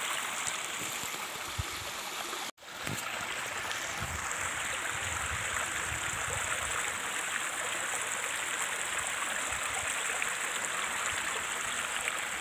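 Shallow stream running over rocks, a steady rushing burble that drops out for a moment about two and a half seconds in.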